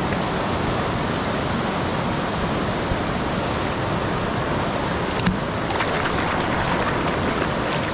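Steady rush of a mountain trout creek running high and fast in flood, water pouring over a rocky riffle. A few brief clicks sound about five to six seconds in.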